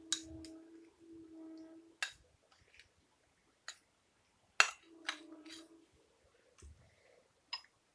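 A spoon clinking and scraping against bowls as ground masala paste is scraped onto raw chicken in a glass bowl: about nine sharp, separate clinks. Three short stretches of a steady low humming tone come near the start, at about one second and at about five seconds.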